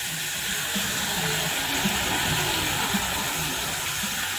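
Steady hissing rush of noise, with a faint murmur of distant voices underneath.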